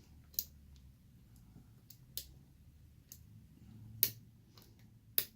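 Faint metallic clicks of a lock pick working the pins of a 40 mm padlock under tension: about six sharp, separate clicks, the loudest about four seconds in and just after five seconds. Among them is the click of the fourth pin setting.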